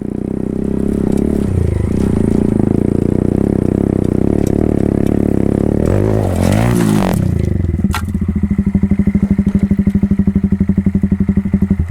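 Honda Monkey 125's single-cylinder engine running. It is revved once about six seconds in, the pitch rising and falling back, then settles to an even, pulsing idle.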